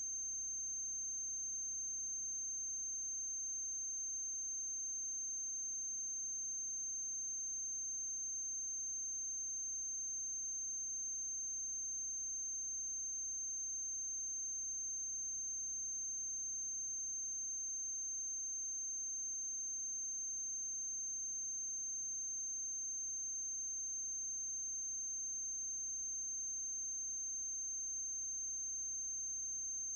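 Steady electrical hum with a constant high-pitched whine, unchanging throughout, and no other sound.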